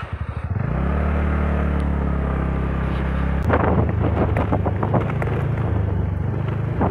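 TVS Ntorq 125 scooter's single-cylinder engine pulling away: an even pulse at first, then within about a second it rises into a steady drone as the scooter gets under way. From about halfway a rattling joins in, which the rider puts down to the loose front visor.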